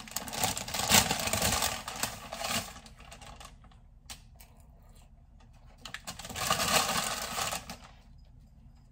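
Paper rustling and crinkling, likely a cookie's paper sleeve being handled, in two bouts: a longer one at the start, and a second about six seconds in.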